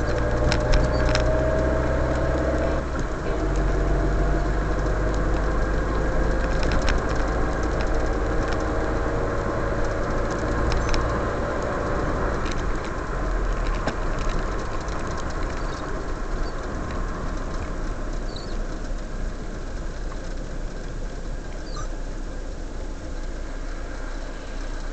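Car driving on a wet road, heard from inside the cabin: engine running under tyre and road noise, its note rising twice during the first dozen seconds, with a break about three seconds in, then settling as the car slows in traffic.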